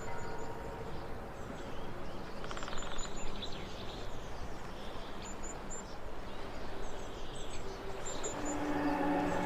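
Small birds chirping in short high bursts, several times, over a steady outdoor background noise. Soft ambient music with sustained tones fades in near the end.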